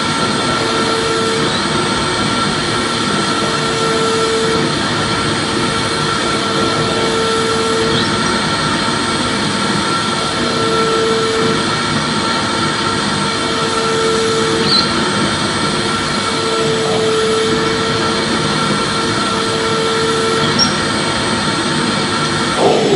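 Vacuum cleaner running steadily: a constant whir and rush of air with a faint high tone, and a lower hum that comes and goes every few seconds.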